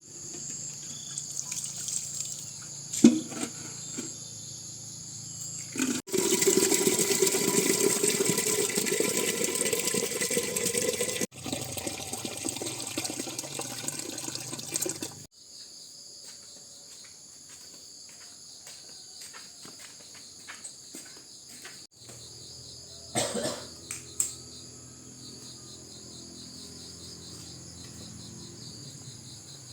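A steady high-pitched insect chorus, broken by about nine seconds of loud rushing water, with a few knocks. The sound cuts abruptly between these several times.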